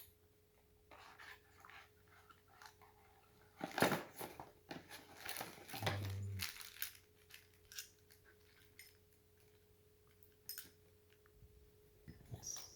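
Handling of unboxed lock parts and packaging: scattered clicks and rustles, the loudest about four seconds in, with a short low sound about six seconds in.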